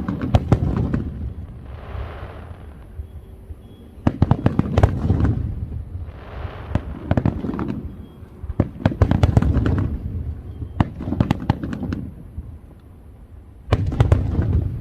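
Fireworks going off in about six separate volleys of sharp bangs and crackling, with short hissing sounds between some of the volleys.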